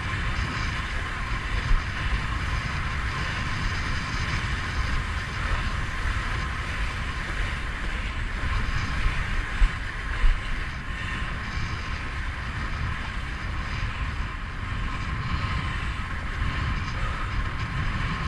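Wind buffeting the microphone and water rushing along a windsurf board under sail, a steady rumble and hiss. There are three brief louder bumps, about two seconds in and twice near ten seconds, as the board meets chop.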